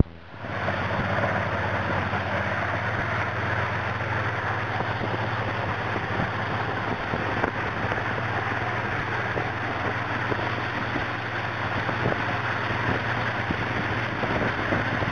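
Motorboat engine running steadily under way, a low hum under the loud rush and hiss of its churning wake. The sound comes in about half a second in.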